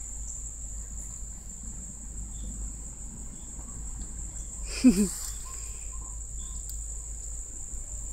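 Crickets making a steady, high-pitched continuous trill. A brief low vocal sound cuts in about five seconds in.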